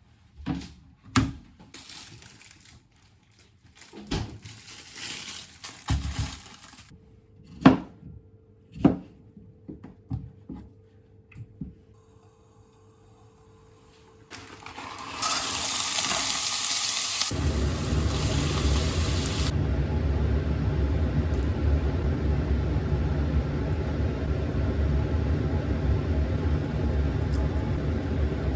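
A run of sharp knocks and clatters with bursts of running water, like kitchen or sink work. Then a loud hiss of rushing water for a few seconds, and from about halfway on a steady low rumble.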